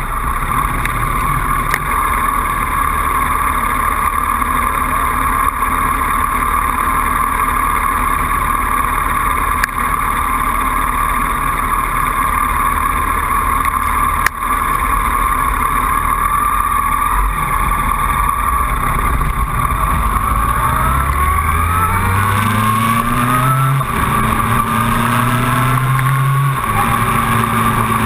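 Motorcycle engine idling steadily, then pulling away: the engine note rises, drops with each upshift and rises again about three times, then holds steady at cruising speed.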